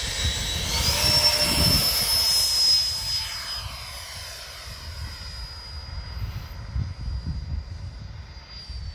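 Electric ducted fan of a Freewing 90 mm F-18 RC jet: a high whine that rises in pitch about a second in as the throttle opens for takeoff, loudest over the next two seconds, then fading as the jet climbs away. A low uneven rumble runs underneath.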